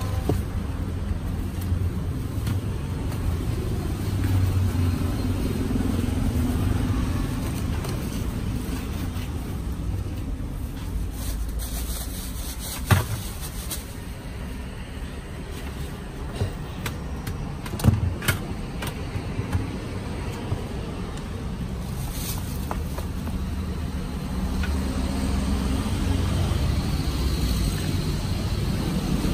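Steady low rumble of passing road traffic that swells and fades as vehicles go by. A few sharp knocks cut through it, the loudest about thirteen and eighteen seconds in.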